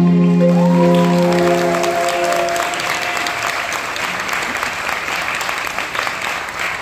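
The waltz music ends on a held chord that fades out over the first couple of seconds, while audience applause starts about a second in and carries on as dense clapping.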